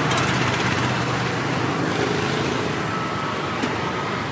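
Steady roadside traffic noise.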